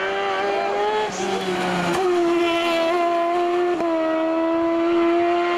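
Hill-climb prototype race car's engine running at high revs through a bend: a steady, loud engine note that steps down in pitch briefly about one, two and four seconds in.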